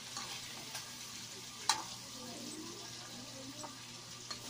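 Chicken and vegetables in tomato sauce sizzling in a metal wok while a metal ladle stirs them, scraping and tapping, with one sharp clank of the ladle against the wok a little under two seconds in.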